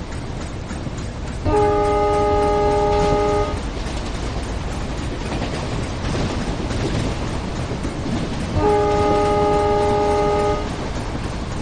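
Train horn sounding two long blasts of about two seconds each, a steady chord of several tones, over the continuous low rumble of the train running.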